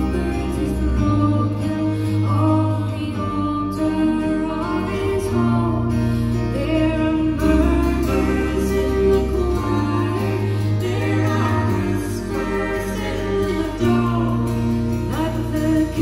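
Live folk band music: a four-string guitar and accordion over low sustained drone chords that change every few seconds.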